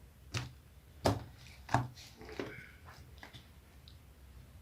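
A few sharp knocks or clicks, three louder ones about two-thirds of a second apart, then some fainter ones: small objects being handled and set down.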